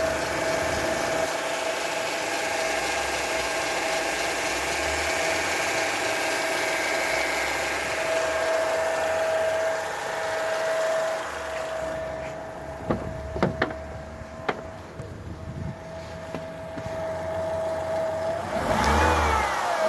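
Opel Astra J power steering humming: a steady, even whine with the car's engine running underneath, the hum the owner presents as the fault. A few short knocks come about two-thirds of the way through, and near the end the whine swoops up in pitch and back down.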